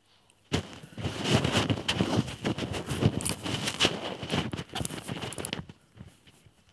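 Close-up rustling, scratching and tapping of clip-on lapel microphones being handled and adjusted against shirt fabric, an irregular run of scrapes and knocks that dies down near the end.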